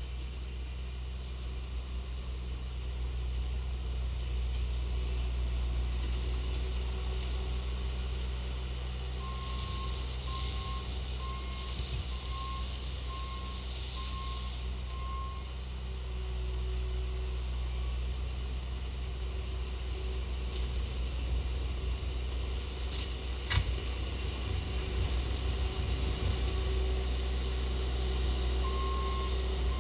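Bobcat T870 compact track loader's diesel engine running steadily, with its backup alarm beeping about once a second while it reverses, roughly a third of the way in and again at the very end. A hiss accompanies the first run of beeps, and there is one sharp click a little past two thirds of the way through.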